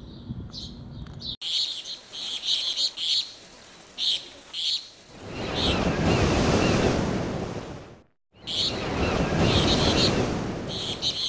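Birds chirping in short repeated bursts over the wash of surf. The surf swells up about halfway through, fades, breaks off completely for a moment, and comes back.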